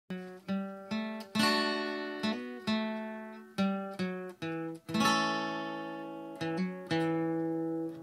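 Background music: acoustic guitar playing plucked notes and chords, each ringing out and fading before the next.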